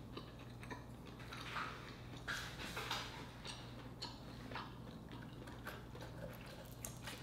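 Faint scattered clicks and scrapes of a wooden spoon working inside a sea urchin's shell, scooping out the roe.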